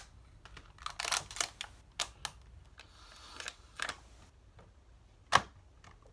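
Hand work on a hard plastic object while holes are poked in it: a run of sharp clicks and taps, a brief scratchy scrape about three seconds in, and one louder knock about five seconds in.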